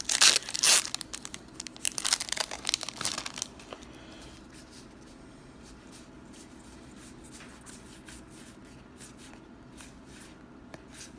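Magic: The Gathering booster pack's foil wrapper being torn open and crinkled for about three and a half seconds, then a few faint clicks.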